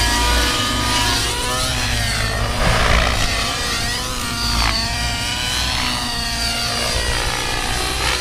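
Align T-Rex 700N nitro RC helicopter flying 3D aerobatics: its glow engine and rotor make a high-pitched whine that sweeps up and down again and again as the helicopter flips and turns.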